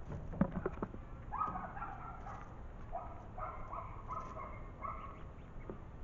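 A jay calling: a series of about eight short, repeated calls, each under half a second, starting about a second and a half in. A few sharp clicks come in the first second.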